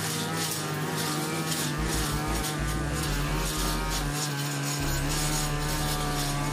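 A 42cc two-stroke brush cutter running steadily at working speed, its blade cutting through grass and weeds.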